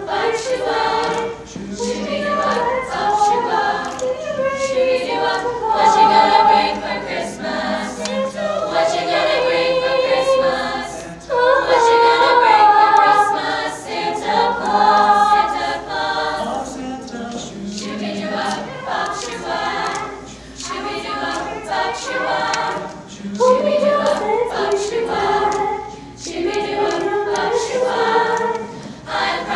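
Girls' high school show choir singing in harmony, seemingly without accompaniment, in phrases that swell and fall back.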